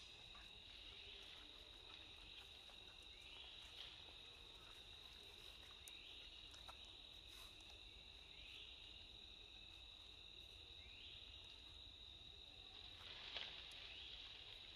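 Faint, steady high-pitched insect chorus, with short rising chirps repeating every two to three seconds.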